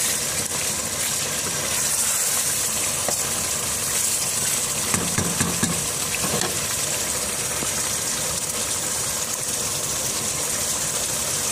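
Mutton and potato curry sizzling and bubbling steadily in a pot as the added water cooks off and the oil begins to separate.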